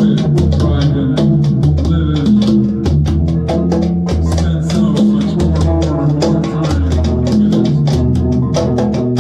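Band music: a repeating bass line under fast, dense drum and shaker strokes, with guitar.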